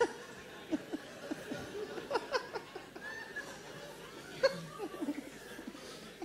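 Audience laughter: several people chuckling and laughing in short, scattered bursts.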